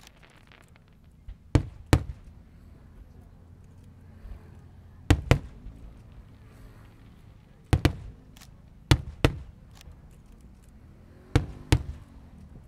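Fireworks going off: about ten sharp bangs in five close pairs, a few seconds apart, over a low steady rumble.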